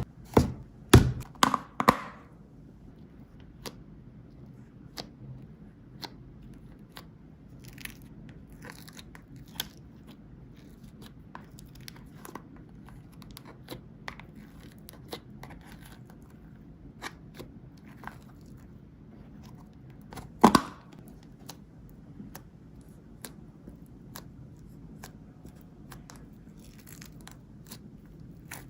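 Slime being handled, making scattered small clicks and crackles, with a few louder snaps in the first two seconds and one about twenty seconds in.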